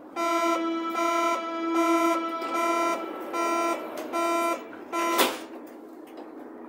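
Door-closing warning signal of a Berlin U-Bahn HK-series train: a run of about seven loud electronic beeps of uneven length, ending about five seconds in with a sharp knock as the sliding doors shut.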